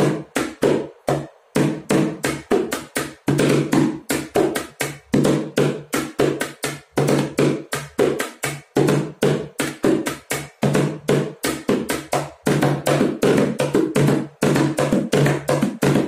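Upturned plastic bucket played as a samba repique (repinique) with a stick and bare hand: a fast solo of rapid strokes, each with a low ring, broken by a few short pauses.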